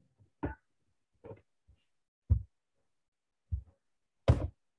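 About six dull, irregular clicks and thumps from a computer keyboard and mouse as a SQL query is copied and run. The last thump, near the end, is the loudest and sharpest.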